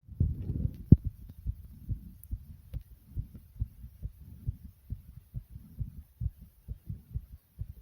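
A person's heartbeat recorded close up: fast, soft, regular low thumps, a little over two a second. It opens with a rustle and a sharp knock in the first second.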